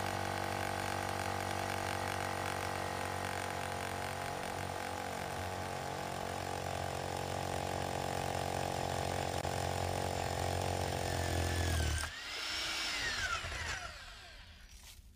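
Bosch hammer drill with a 2-inch diamond core bit running steadily as it cores through a brick wall. It stops about twelve seconds in, and a short whine follows as it spins down and fades.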